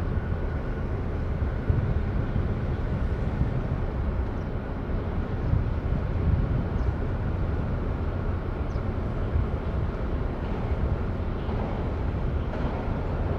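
Steady low outdoor rumble, with wind buffeting the microphone.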